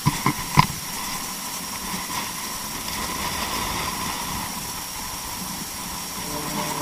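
Steady wind rushing over a helmet camera's microphone on an open ridge, with two short knocks about half a second in.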